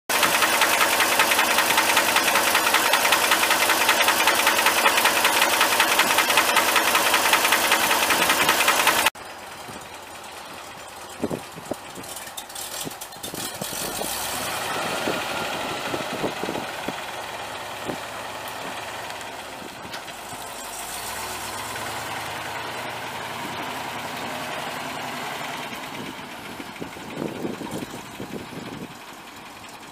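Eight-cylinder gas engine of a 1971 International Loadstar 1700 dump truck running. For about the first nine seconds it is loud and close. After a sudden cut it is much quieter, with a few clicks and knocks, and it rises and falls in level twice.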